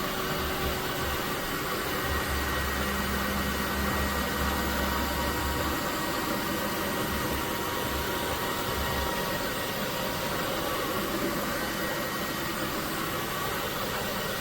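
Dreame H12S cordless wet-dry vacuum mop running steadily in auto mode, a constant motor whir with a faint steady whine over it.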